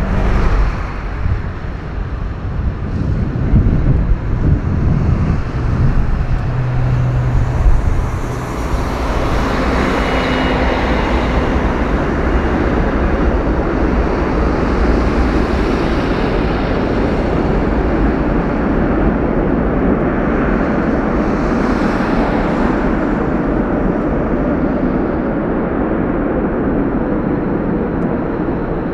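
Boeing 777F freighter landing, the noise of its GE90 jet engines swelling over the first several seconds with a few short passing tones. It then holds as a steady loud rush while the jet rolls out on the runway.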